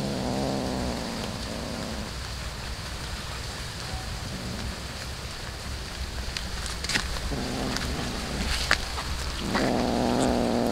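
A cat rumbling low in its throat in spells over its raw fish, with wet chewing and a few sharp crunches as it bites into the fish. The rumble is strongest over the last few seconds.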